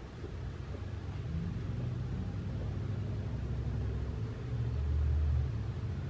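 Low rumble of a passing motor vehicle, growing from about a second in and loudest around five seconds in.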